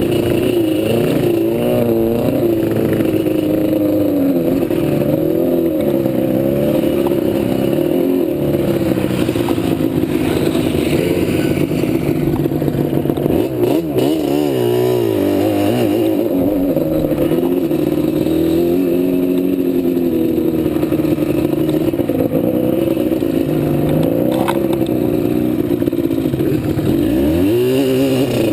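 Quad ATV engine running on a trail ride, the revs rising and falling constantly with the throttle. About halfway through, the revs drop briefly, then climb again.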